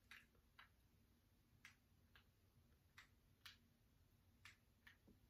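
Near silence: room tone with about eight faint, short ticks at irregular intervals.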